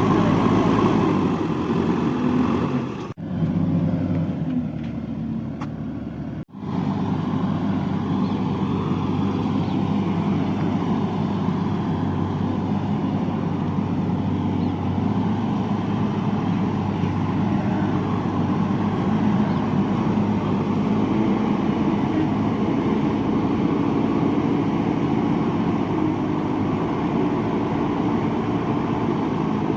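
JCB 3DX backhoe loader's diesel engine running steadily while working, with a muffled stretch from about three seconds in to about six seconds in, where the upper part of the sound drops out before it returns.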